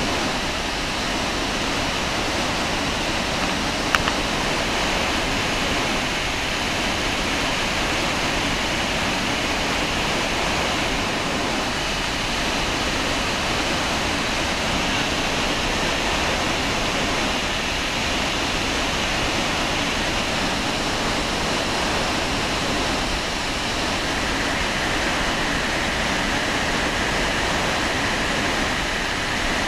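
Iguazu Falls roaring: a massive volume of water plunging into the gorge, heard close up as a steady, dense rush. A single small click sounds about four seconds in.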